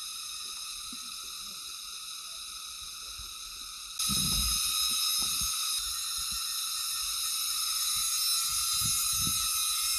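A steady, high-pitched buzzing insect chorus, typical of cicadas in mountain forest. It gets suddenly louder about four seconds in, with soft low thumps of footsteps or handling underneath.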